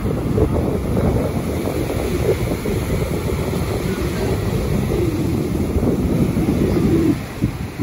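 Sea wind buffeting the microphone over the wash of breaking surf, a loud, steady rumble that eases briefly near the end.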